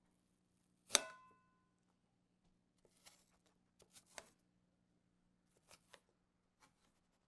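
Knife chopping apple slices on a ceramic plate: a sharp knock about a second in that sets the plate ringing briefly, then a few softer cuts and taps against the plate.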